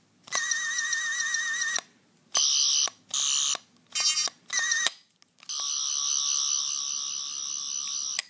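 Toy Fourth Doctor sonic screwdriver playing its electronic sonic sound effects through its small speaker: a warbling tone of about a second and a half, four short bursts, then a long wavering buzz of almost three seconds that cuts off near the end. These are the toy's own effects, not the classic sounds of the original prop.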